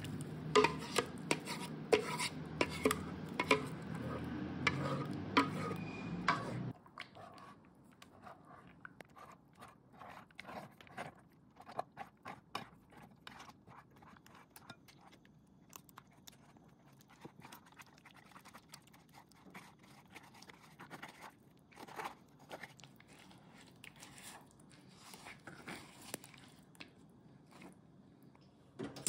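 A spoon scraping and pressing thick puréed sauce through a fine stainless-steel mesh sieve: soft, irregular scrapes and light taps of metal on metal. For the first seven seconds a steady low hum with frequent sharp taps sits under it, and it cuts off abruptly.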